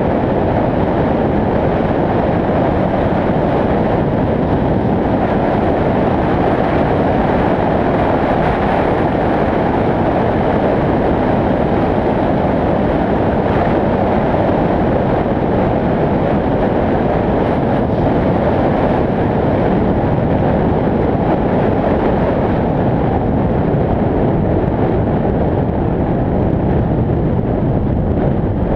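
Steady rush of wind on an outside-mounted action camera's microphone, mixed with the tyre and road noise of a vehicle driving at speed on a paved highway.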